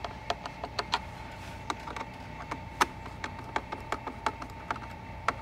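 Phillips screws being driven by hand with a screwdriver into plastic speaker-grill and lid parts: a run of small, irregular clicks and taps, a few a second.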